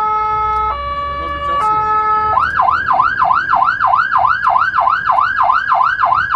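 Fire engine siren heard from inside the cab: a two-tone hi-lo call that changes pitch about once a second, switching a little over two seconds in to a fast yelp sweeping up and down about three times a second. A low engine rumble runs underneath.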